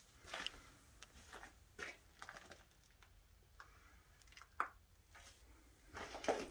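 Faint, irregular footsteps and scuffs in a small room, with a sharper knock about two-thirds of the way in and a louder cluster near the end.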